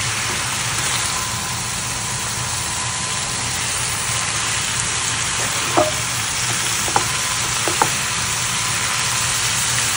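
Strips of chayote, carrot and wood ear mushroom sizzling steadily in a hot pan as they are stir-fried with a slotted spatula, with a few short knocks of the spatula against the pan past the middle.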